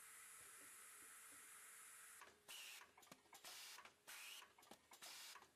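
Automatic envelope packaging machine running faintly: a steady hiss with light ticking, then, about two seconds in, a run of short hisses roughly once a second as the wrapping section cycles.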